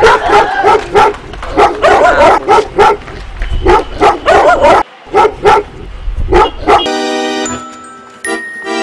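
Dog barking in quick repeated barks, about two a second, over a low rumble; about seven seconds in the barking stops and music with steady held tones takes over.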